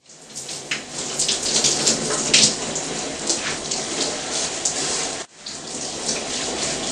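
Handheld shower head spraying water onto hair, a steady hiss of running water with irregular splashes and crackles as fingers work the wet hair during rinsing. It breaks off for an instant about five seconds in.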